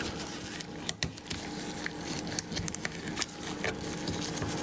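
Small, sharp metal clicks and scrapes at irregular moments as a wrist-pin retaining clip is worked into the groove of an aluminium piston's pin bore by hand, over a faint steady low hum.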